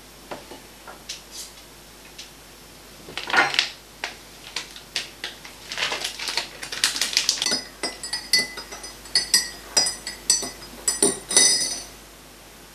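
Cutlery on crockery at a meal table: scattered clicks and scraping against plates, then, from about halfway in, a run of quick clinks that ring on briefly, metal striking china or glass.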